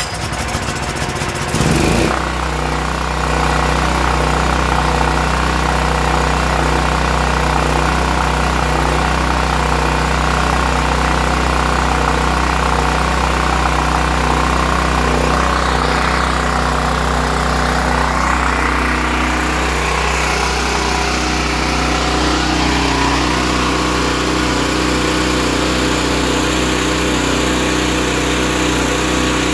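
Westinghouse WGen9500 portable generator's single-cylinder engine pull-started with the recoil rope, catching about two seconds in and then running at a steady speed. The engine holds an even speed without surging or hunting, the sign that cleaning the carburetor's idle jet and replacing the bad fuel cured the surge.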